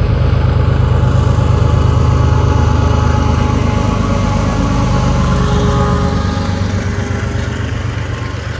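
Two CSX diesel locomotives passing close by under power, a loud, steady deep engine rumble that begins to fade about six seconds in as the locomotives go by and the auto-rack cars follow.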